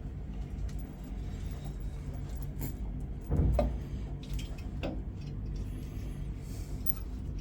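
Ideal Imax commercial boiler humming steadily during a firing attempt, with a few sharp clicks and a louder knock about three seconds in; the burner does not stay lit.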